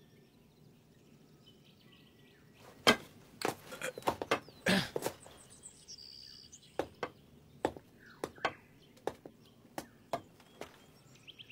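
Scattered short, sharp taps and knocks in an irregular pattern, the loudest few between about three and five seconds in, over faint bird chirping.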